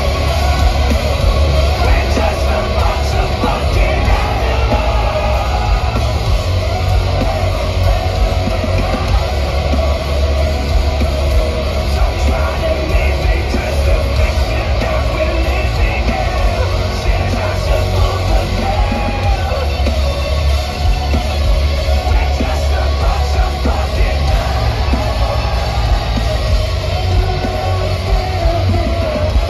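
Live metalcore band playing at full volume: heavily distorted guitars, pounding drums and heavy bass, with a singer shouting and singing over them.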